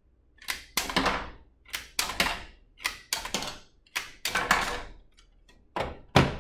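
A run of sharp plastic clacks and knocks, about ten in all, from a Lego pump-action rubber band pistol being pumped and fired, with Lego brick targets toppling onto a plastic table. The loudest knock comes near the end.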